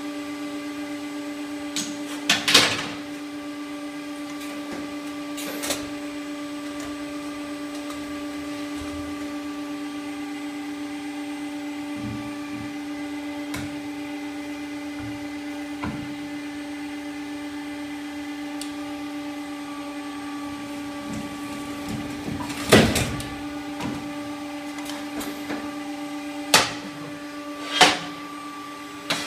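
Hydraulic gorelocker elbow-forming machine running with a steady hum, broken by a few sharp clanks, two in the first few seconds and three in the last third, the loudest about 23 seconds in.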